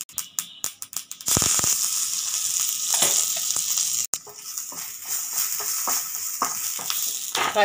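Tempering in hot sesame oil in a kadai: a few scattered crackles, then about a second in a sudden loud sizzle as curry leaves hit the oil, hissing steadily on.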